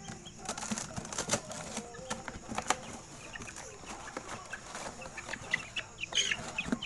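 A hand rummaging in a box of young chicks: irregular scuffs and knocks against the box and wings fluttering, with a few short chick peeps about six seconds in.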